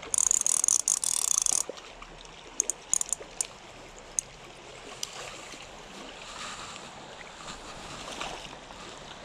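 Fly reel's click-and-pawl ratchet buzzing loudly for about a second and a half as line is wound in quickly, followed by a few separate clicks. After that, soft running creek water.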